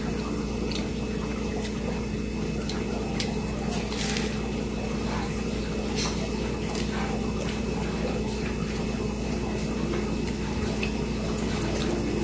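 Eating a toasted grilled cheese sandwich close to the microphone: chewing and a bite, heard as soft wet mouth sounds with irregular small clicks, over a steady low hum.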